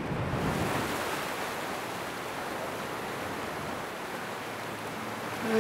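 Surf washing up on a sandy beach: a steady rush of breaking waves.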